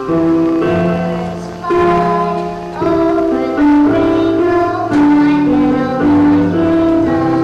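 Children singing a song to piano accompaniment, held notes changing about once a second.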